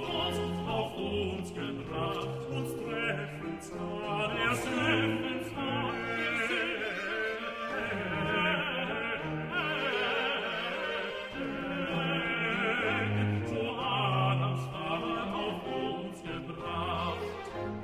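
A Baroque duet of tenor and bass voices singing in German, accompanied by violins in unison and a basso continuo whose bass line moves in steady notes beneath.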